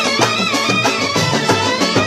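Brass band of trumpets with side drums and bass drums playing a Malayalam film-song melody over a quick, steady drum beat.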